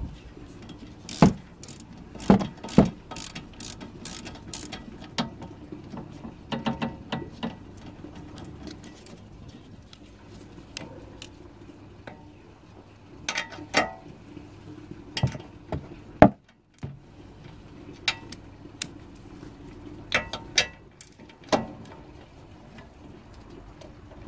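Socket ratchet wrench clicking in short runs as brake caliper bolts are turned, with scattered sharp metallic clinks and one loud knock from tools and the caliper.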